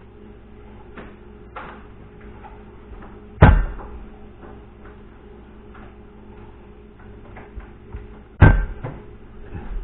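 Two heavy thumps of a cleaver striking a wooden cutting board, about five seconds apart, with a few light knocks in between over a steady low hum.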